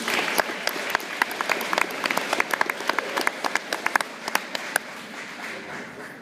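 Audience applauding, a dense patter of hand claps with some single sharp claps standing out, dying away over the last second or so.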